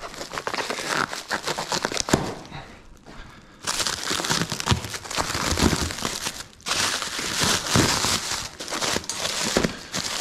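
Black plastic stretch wrap on a pallet crinkling and rustling as it is handled and cut open with a knife. Scattered clicks at first, then the crinkling turns loud and continuous about a third of the way in, with a short break about two-thirds through.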